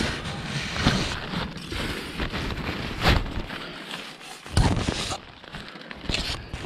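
Close rustling and scraping of hands and body moving through dry leaves, sticks and gear on the ground, with a few knocks along the way.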